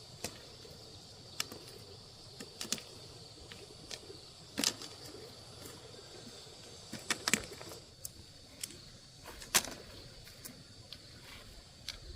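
Irregular knocks and clicks of handwork, the loudest about four and a half, seven and nine and a half seconds in, over a steady high-pitched insect drone.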